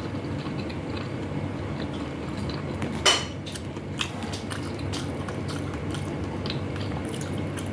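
Eating at a meal of chicken wings and rice: chewing and light utensil sounds, with a sharp clink of cutlery against a plate about three seconds in and a smaller clink a second later, over a steady low background hum.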